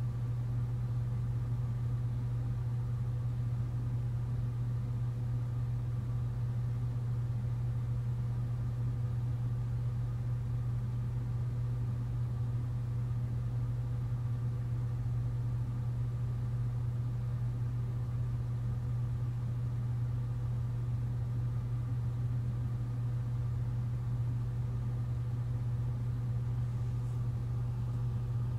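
Steady low mechanical hum with a few faint steady tones above it, unchanging throughout.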